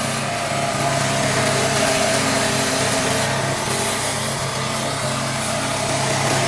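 Self-propelled lawn mower engine running steadily at an even speed.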